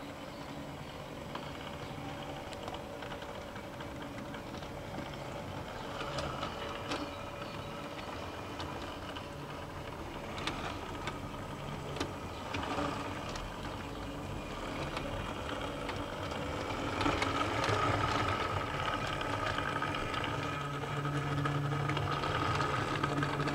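OO gauge model of the Ivatt 2-6-0 steam locomotive running along Hornby Dublo tinplate track. Its small electric motor, refitted with a five-pole armature, hums steadily, and the wheels click sharply over rail joints and points a few times. It grows louder in the second half as the model passes close by.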